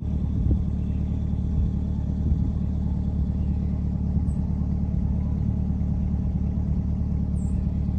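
A car running with a steady low rumble.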